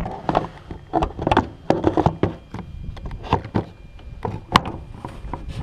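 Irregular knocks, taps and rubbing as a hand handles the R/C Sopwith Camel model's fuselage close to the microphone.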